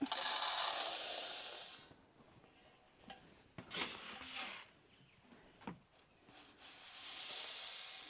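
Black oil sunflower seed poured from a metal scoop into a bird feeder's compartment: a steady hiss of seed for about two seconds. A few seconds in, the scoop digs into a bucket of seed with short rustles and a click, and the seed pours again near the end.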